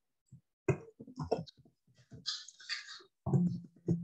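A woman's voice murmuring a few indistinct words, quieter than normal talk, in short broken snatches.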